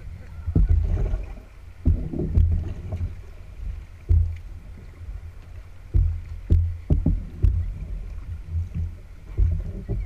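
Canoe moving through choppy river water: paddle strokes splashing and waves slapping the hull in irregular heavy thumps, about one a second.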